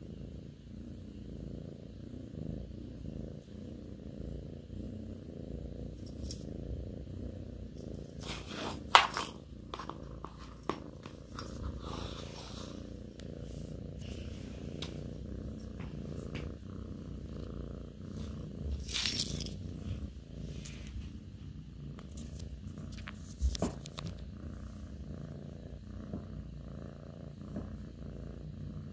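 Russian Blue cat purring steadily in a continuous low rumble. A few brief sharp noises cut in over it, the loudest about nine seconds in.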